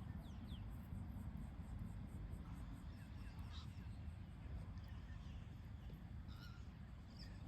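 Faint, scattered bird chirps and short calls over a steady low rumble.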